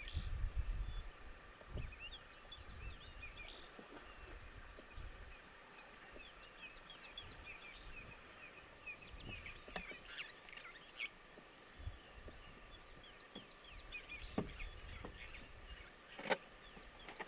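Wild birds chirping: many short, quick calls throughout, over a faint steady hum. A low rumble sounds in the first second or so, and a few sharp clicks come later.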